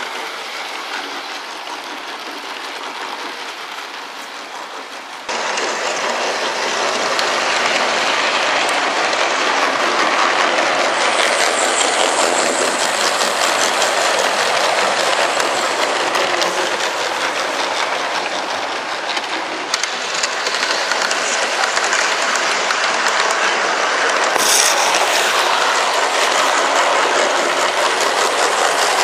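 Garden-railway model train running past on its track, with a steady clatter of wheels on the rails. It grows abruptly louder about five seconds in.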